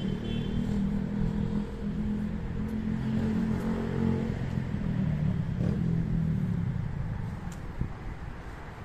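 An engine running steadily, with a low drone that fades away about seven seconds in.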